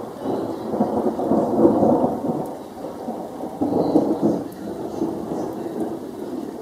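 Thunder rumbling in rolling waves, swelling about a second and a half in and peaking again around four seconds in before dying back.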